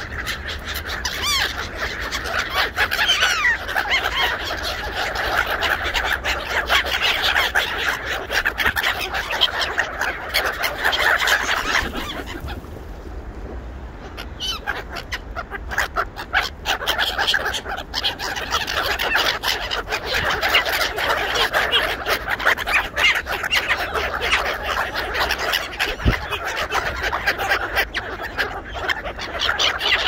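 A flock of gulls, ducks and geese calling over one another almost without pause, with a short lull about halfway through.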